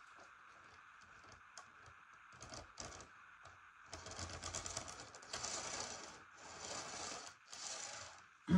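Small plastic clicks and rattles of model railway coaches being handled and fitted onto the track and coupled, with a denser run of scraping and rattling in the second half. A faint steady hum runs underneath.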